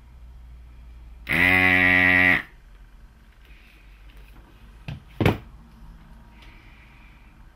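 Desoldering gun's vacuum pump buzzing steadily for about a second as it sucks molten solder from a pin hole on a circuit board. Two sharp knocks close together, the second louder, follow about five seconds in.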